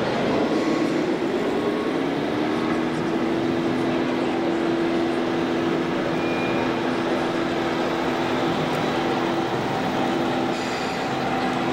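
Radio-controlled model trucks running on an indoor track in a busy hall, under a steady wash of hall noise. A motor whine falls in pitch over the first two seconds or so and then holds steady.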